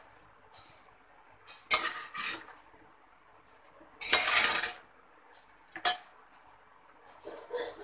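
Metal spatula scraping and knocking against the inside of a metal pressure cooker while stirring cooked rice. There are a few short scrapes, a longer scrape about four seconds in, and a sharp clink near six seconds.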